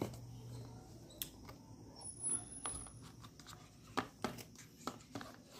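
Cardboard smartphone box and its paper insert being handled: faint scraping with a few light taps and clicks as the inner packet is lifted out of the box.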